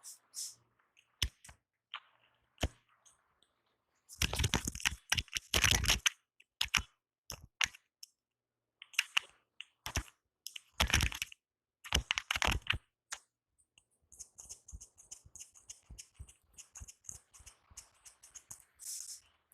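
Hands working over a person's head and hair during a barber's head massage: scattered clicks, with two louder spells of rubbing and patting about four and eleven seconds in, then a run of quick, light ticks near the end.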